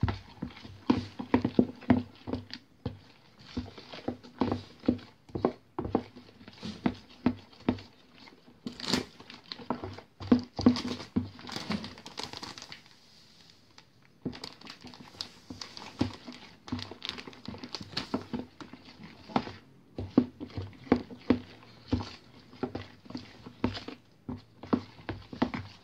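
A fork beating and scraping through a thick semolina bread batter in a plastic container, a quick, uneven run of taps and clicks against the sides. About halfway through, a plastic packet crinkles and the mixing pauses briefly.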